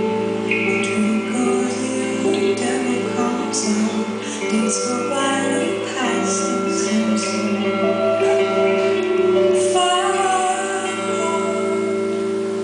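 Live music: a woman singing over electric guitar, with steady held tones underneath.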